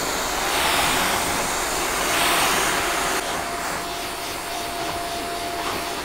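Shark Stratos vacuum running loud with its motorized pet-hair power brush being worked over fabric couch cushions: a steady rushing of suction and motor. A faint thin whine rides on it through the middle few seconds, and the level drops slightly about three seconds in.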